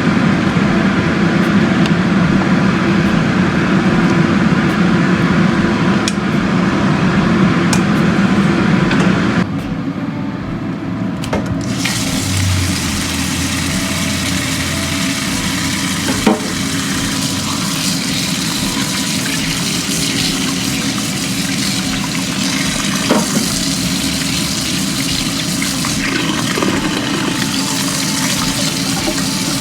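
Water running and splashing, a steady noisy rush that changes about ten seconds in to a brighter hiss, with a few light knocks.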